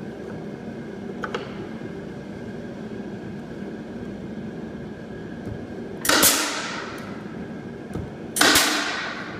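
A hand staple gun firing twice, about two seconds apart, driving staples into a wooden board: each is a sharp snap that rings out briefly.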